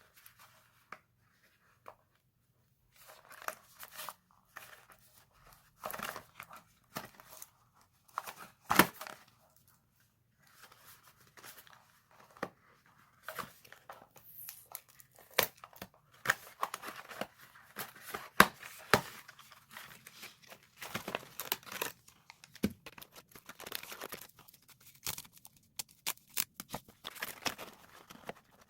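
Packaging being torn open and crinkled by hand. It comes in irregular bursts of rustling, with sharp clicks and taps, after a quiet first few seconds.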